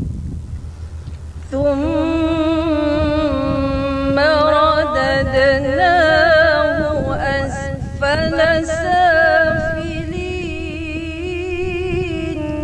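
A woman reciting the Qur'an in tarannum, the melodic chanting style: long held notes with wavering, ornamented turns. It begins about a second and a half in, over a steady low rumble.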